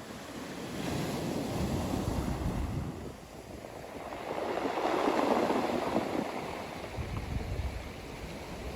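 Ocean surf breaking and washing onto a beach: a steady wash that swells twice, the second swell, about halfway through, the louder.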